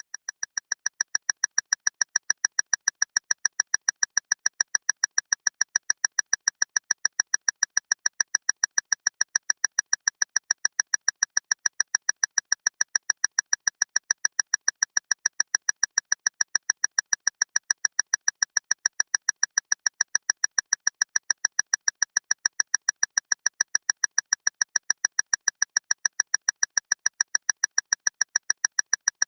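Clock ticking loudly and rapidly: sharp, high, perfectly even ticks several times a second, fading in over the first second and then holding steady.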